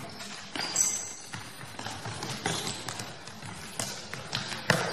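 Futsal ball being kicked and thudding on a sports-hall floor, a run of scattered sharp knocks, with a brief high squeak about a second in.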